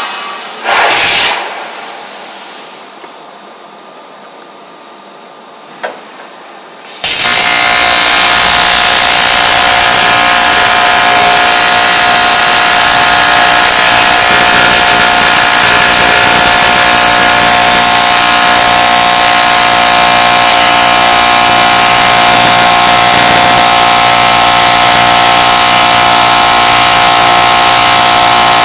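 Lorch V40 AC TIG arc welding aluminium: after a brief burst about a second in, a loud steady buzz starts suddenly about seven seconds in and holds evenly as the weld runs.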